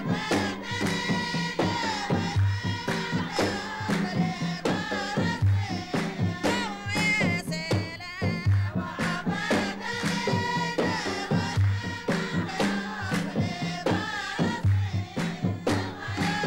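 Dhofari folk music in the sawt silam style: a group singing together over steady unison hand-clapping, with a low beat that comes about every second and a half.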